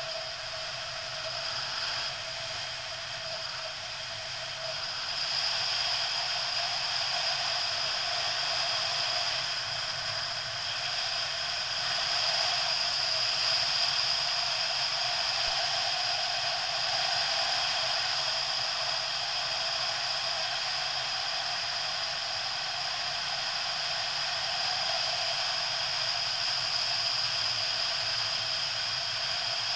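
Steady running noise of a motorcycle on the move, engine and wind blended into a constant thin hiss with a high whine and little bass. It gets a little louder about five seconds in.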